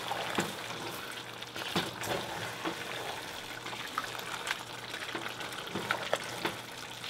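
Pot of potato greens cooking with freshly added red palm oil: a steady sizzle, with scattered short clicks of a spoon stirring against the pot.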